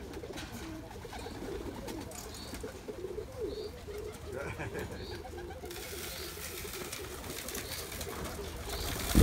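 Domestic pigeons of the Turkish Kelebek breed cooing in their loft: a low, warbling run of coos that repeats.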